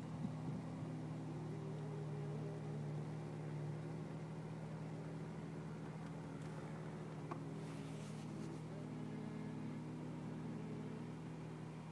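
Distant vehicle engine running steadily as a low hum, its pitch wavering a little around the middle, with a brief hiss about eight seconds in.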